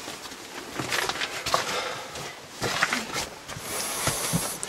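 Boots scuffing and stepping on loose limestone rubble, with the rustle of caving overalls as someone climbs. There are irregular crunches and knocks, and a short hiss of fabric rubbing near the end.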